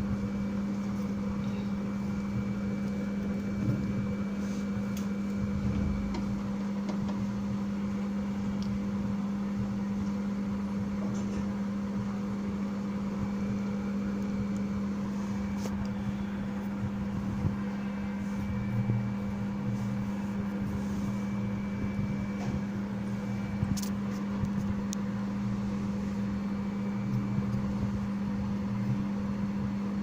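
A steady, unbroken electrical or mechanical hum with one strong low tone and a fainter higher whine, and a few faint clicks scattered through it.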